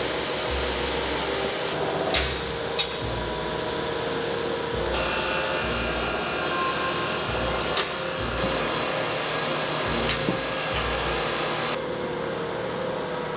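Steady hum and hiss of factory machinery on a frying-pan production floor, with a few short sharp clinks and knocks as stainless pans are handled.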